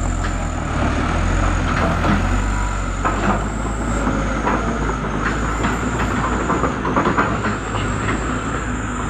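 Diesel engines of a loaded Mitsubishi Canter truck and a hydraulic excavator running steadily under load as the excavator bucket pushes the truck up a grade it cannot climb on its own, with repeated metallic squeaks and clanks, loudest around three and seven seconds in.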